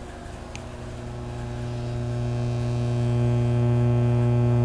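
Pretty serious hum from a faulty Soundcraftsmen A2502 power amplifier, played through a loudspeaker with no input signal: a steady low hum with a stack of overtones. It grows louder over the first three seconds, then holds. The hum comes from both channels, and the repairer suspects the amplifier's power supply.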